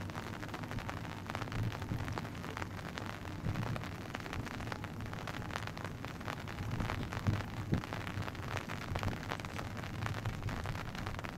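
Wind buffeting the camera microphone: a gusty low rumble with crackling on top.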